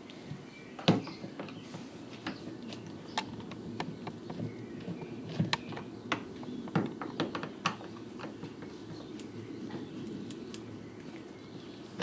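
Irregular small clicks and taps of a screwdriver and hands working at the screws and vent openings of a fridge's plastic back panel.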